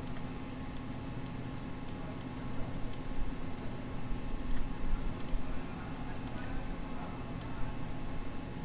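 Computer mouse clicking: a dozen or so short, sharp clicks at irregular intervals as vertices are selected and dragged, over a steady low electrical hum and hiss.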